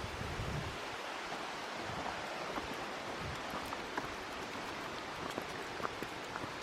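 Steady rush of mountain water, an even hiss with no change, and faint light ticks scattered through it. A low wind buffet on the microphone dies away just at the start.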